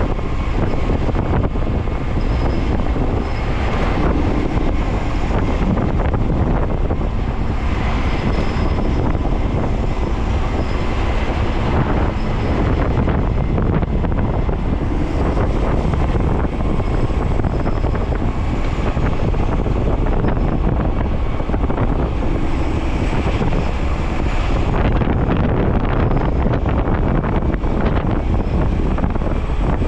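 Garbage truck driving: steady engine and road noise, with wind buffeting the microphone.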